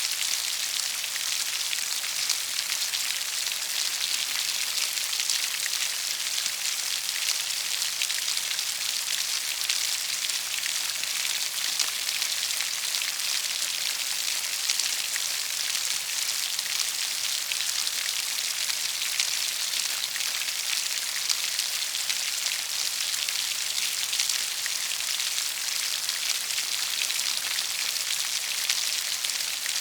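Steady rain falling, a dense even hiss of countless drops with faint scattered patters.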